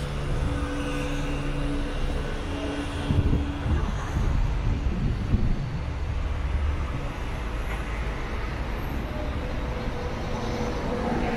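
City street traffic: a motor vehicle's engine hums steadily for the first few seconds, over a continuous low rumble of passing traffic.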